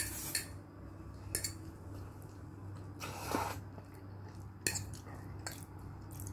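Eating instant fried noodles: a slurp of noodles at the start, then chewing and a fork clinking and scraping on the plate in a few short, separate sounds.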